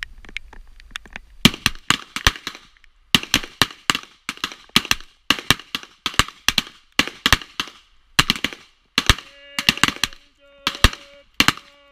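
Revolver shots, a rapid, uneven string of cracks from several shooters firing at once, starting about a second and a half in, with a brief pause shortly after. A steady low tone sounds under the last shots near the end.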